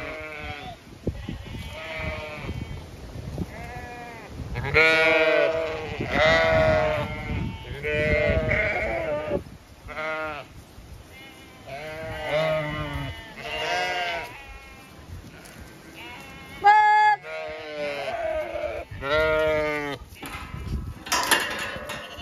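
A flock of Zwartbles sheep bleating again and again, with many separate calls, some overlapping, one every second or two. The calls are loudest from about five to nine seconds in, and a sharper, higher call comes about seventeen seconds in.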